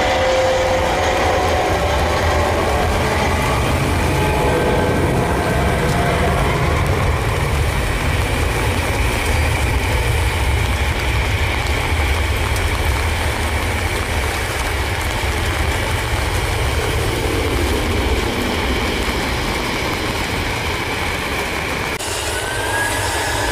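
Airbus A320 jet engines at takeoff power, a loud steady rumble as the airliner rolls through spray on a wet runway and lifts off, easing slightly in the last seconds. Near the end the sound changes abruptly and a rising whine begins.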